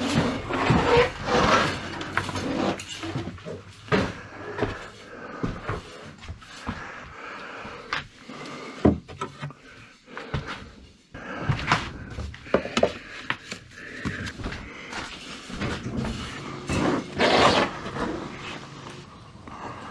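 Stacks of 78 rpm records being handled and shifted about in a small room: irregular knocks, clunks, clicks and scraping rustles, with one sharp knock a little before the middle and a longer rustling scrape near the end.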